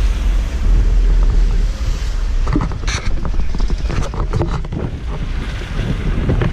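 Mazda vehicle's engine running with a steady low rumble, heard from inside the cab. Scattered knocks and clatters start about two and a half seconds in.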